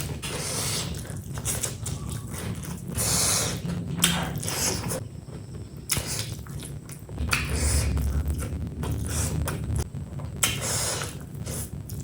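Close-miked eating sounds: a run of crunchy, clicking bites and chewing.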